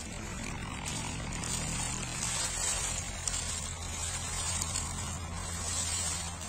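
Footsteps crunching and rustling through a thick layer of dry fallen leaves on grass, a steady crackly rustle, with a low steady hum underneath.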